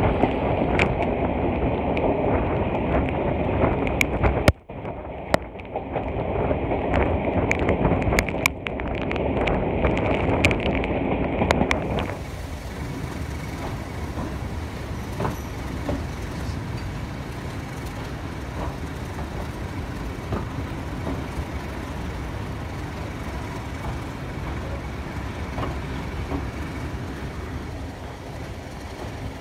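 Moving train coach heard from an open window: loud rushing wind and running noise with scattered sharp clicks and a brief dip about four seconds in. About twelve seconds in, the sound changes to a quieter, steady rumble of the train running along the track.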